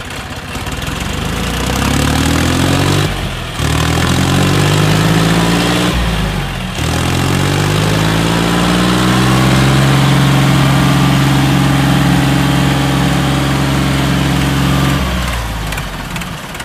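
Two diesel tractor engines, a John Deere 5050D and a modified Sonalika, at full throttle under heavy load as they strain against each other on a chain. The revs climb, sag briefly twice in the first seven seconds, then hold high and steady before dropping away near the end.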